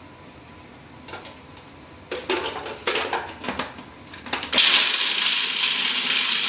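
Clattering and knocks of a food processor's bowl and lid, then its motor starts about four and a half seconds in and runs steadily, chopping a stiff mix of butter, basil, spinach, garlic and pistachios.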